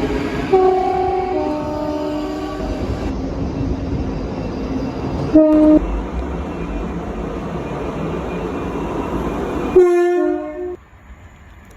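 ScotRail Class 334 electric multiple unit sounding its two-tone horn over the rumble of the train: a high-then-low blast about half a second in, a short single toot midway, and another high-then-low blast near the end.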